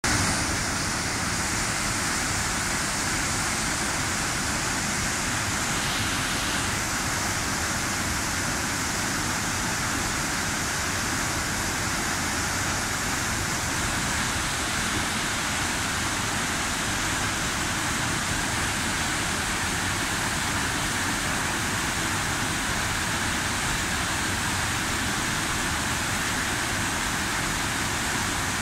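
Duwili Ella waterfall pouring into its plunge pool: a steady, even rush of falling water.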